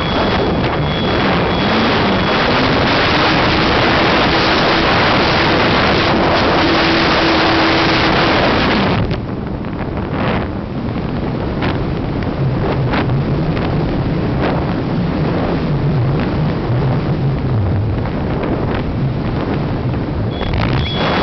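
Airflow rushing over the on-board camera of an RC glider in flight, heavy at first with a faint hum that rises in pitch and then holds steady. About nine seconds in the rush drops suddenly to a lighter, fluttering wind noise for the rest of the flight.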